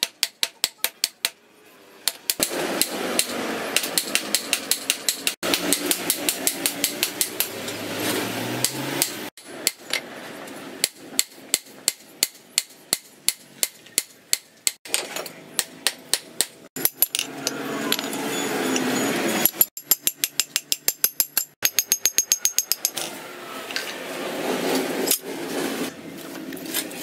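Hammer blows on a red-hot axe head on a steel stake anvil, in fast runs of about four or five sharp ringing strokes a second. Between the runs there are stretches of a steady rushing noise.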